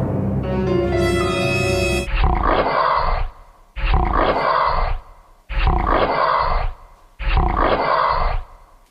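A short dramatic music sting, then a lion roar sound effect played four times in a row, each roar about a second long with short gaps between.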